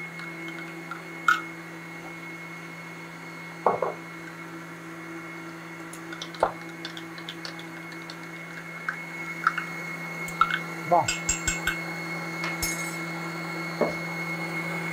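Electric kitchen robot (stand mixer) running at a steady speed with an even whine, beating a cream-cheese cheesecake filling, with a few clinks of utensils against the bowl.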